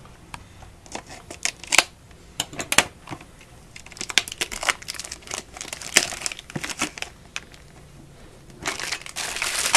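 Trading card box being opened and its wrapping handled: irregular crinkling and crackling of plastic and paper packaging, thicker and more continuous near the end.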